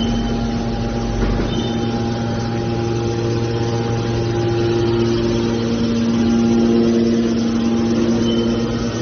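Hydraulic scrap metal baler running: the steady hum and whine of its motor and hydraulic pump, swelling a little about six seconds in.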